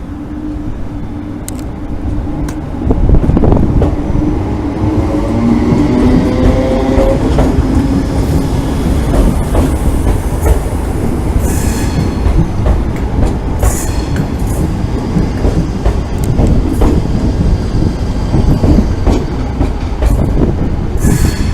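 Class 320 electric multiple unit pulling out of the station. Its motors whine, rising in pitch as it picks up speed, and the wheels then clatter over rail joints and points with a few brief high squeaks.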